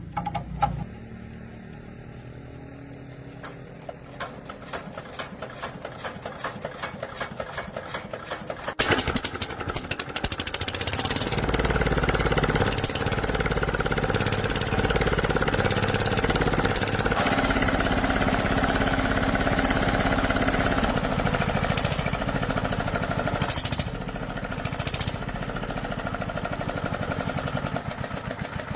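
Diesel engine of heavy farm machinery clattering over, its strokes coming faster and faster until it catches about nine seconds in. It then runs loudly with a knocking clatter, easing off a little near the end.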